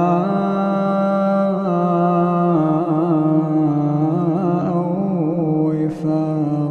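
A male Quran reciter chanting the closing word of a verse, 'wifāqā', drawn out in long held notes with a wavering melismatic ornament in the middle and a short break near the end.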